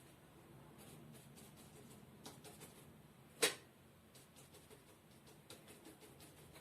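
Faint dry taps and scratches of a stiff, hard-bristled brush dabbing gouache onto paper, with one sharper knock about three and a half seconds in.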